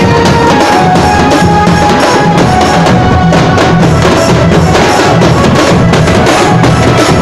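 Loud music with a heavy drum beat and a few sustained melodic tones over it.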